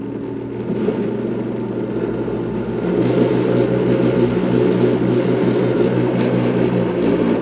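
Countertop blender motor running, churning a cornmeal cake batter; the motor is steady and gets louder, with a shift in pitch, about three seconds in. It is a powerful blender.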